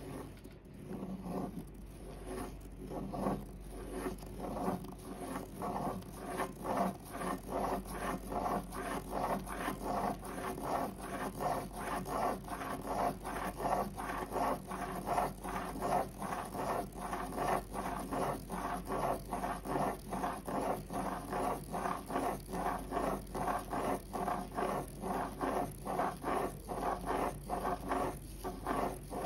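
Plastic spirograph gear rolling round inside a toothed plastic ring, its teeth clicking along the ring while the pen tip scratches the paper: an even, rapid rhythm of scratchy strokes.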